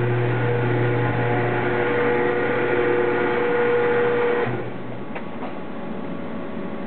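Steady industrial machine hum with a strong low drone and several steady higher tones, which cuts off about two-thirds of the way through. A quieter steady background noise remains, with two faint clicks soon after.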